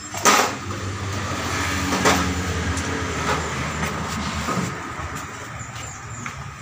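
Mitsubishi L300 van's engine running at a steady low idle that fades out about four and a half seconds in, with a sharp metallic knock just after the start and another about two seconds in.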